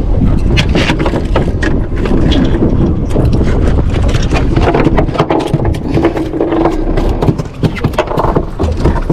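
Rapid, irregular knocking and scraping, like hard objects bumping on wood or a deck, over a steady low wind rumble on the microphone.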